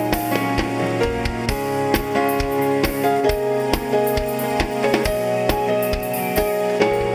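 Band music: keyboard chords over a drum kit keeping a steady beat.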